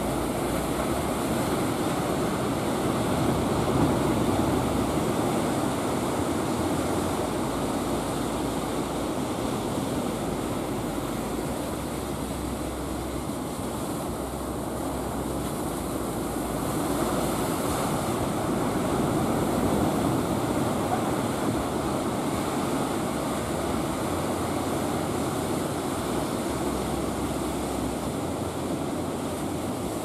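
Heavy ocean surf breaking on a beach: a continuous rush of waves that swells a little about four seconds in and again around seventeen to twenty seconds.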